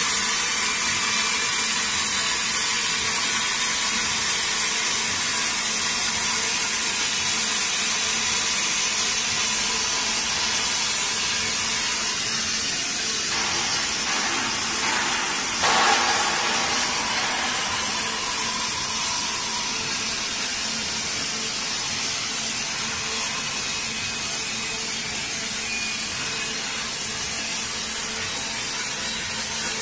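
Five-axis waterjet cutting glass: a steady, loud hiss from the high-pressure jet, with a steady low machine hum underneath. The hiss swells briefly about halfway through.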